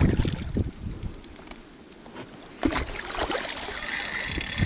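Water sloshing and splashing around a hooked pike being played close in, with a quick run of light clicks in the first second and a half.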